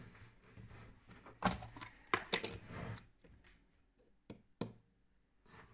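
A few light clicks and knocks of small metal and wooden items being handled beside a brass-pan balance scale and a tub of lead shot. There is a cluster of clicks about one and a half to two and a half seconds in, and two sharp ticks a little past four seconds.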